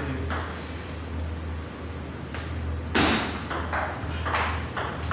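Table tennis ball clicking off the paddles and the table: one hit near the start, then a quick run of hits in a rally from about three seconds in, over a steady low hum.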